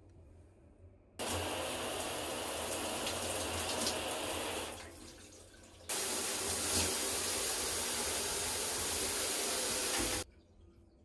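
Shower running, water spraying hard. It comes on suddenly about a second in, dies down briefly a little before the middle, comes back on through the overhead rain-shower head, and cuts off abruptly near the end.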